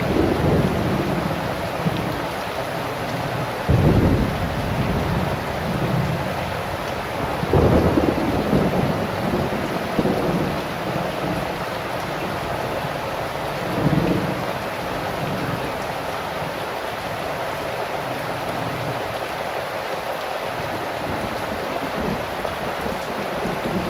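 Heavy rain falling steadily, with low rumbles of thunder swelling up three times, about 4, 8 and 14 seconds in.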